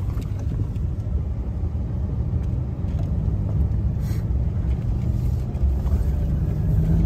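Steady low rumble of a four-wheel-drive truck's engine and tyres, heard from inside the cab while driving on an ice-covered gravel road.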